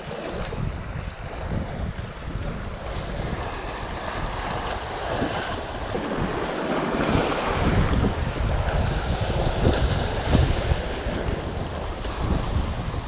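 Sea waves washing and breaking against the boulders of a rock breakwater, with wind buffeting the microphone; the surf gets louder about halfway through.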